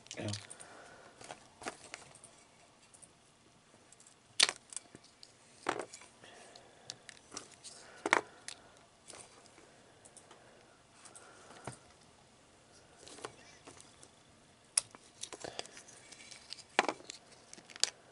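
Cut acorns clicking against each other and against a metal bowl as a hand sorts through them: scattered sharp knocks, one every second or two.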